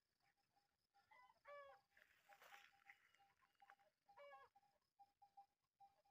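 Faint farm-animal calls: two short pitched calls, one about a second and a half in and another around four seconds in, over a soft note that repeats at intervals.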